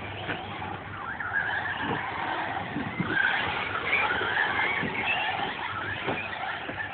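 Radio-controlled cars' motors whining, the pitch rising and falling as they speed up and slow down, with tyre noise and a few light knocks.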